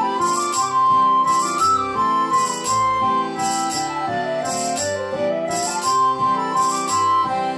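Instrumental break in a sea shanty: a melody line wanders up and down over a steady accompaniment, with a jingling beat about once a second.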